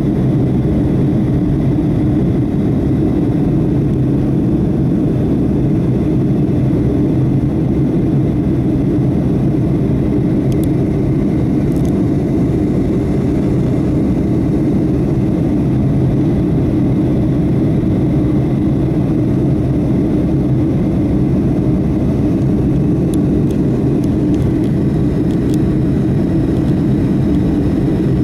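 Steady engine and airflow noise of a Boeing 757-223 heard inside the passenger cabin, a constant low rumble with no change in level.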